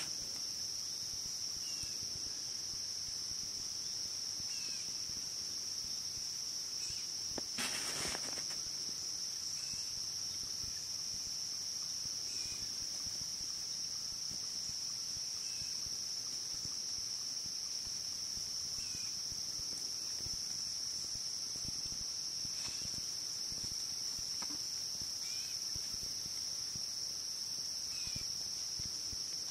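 Steady high-pitched insect chorus, with a brief rustle about eight seconds in.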